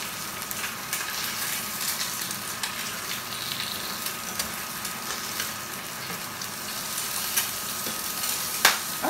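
Eggs frying in a pan, a steady sizzle with small crackles, and one sharper click near the end.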